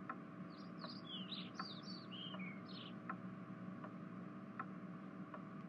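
Faint ambience of birds chirping, a quick run of short falling chirps in the first three seconds, over a steady faint tick about every three-quarters of a second.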